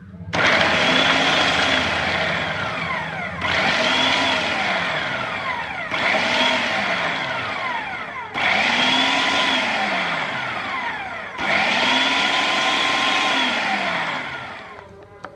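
Electric food processor pulsed five times, coarsely grinding soaked chickpeas with onion, garlic, green chilli and herbs. In each burst the motor whine rises, then falls away as the blade runs down before the next pulse.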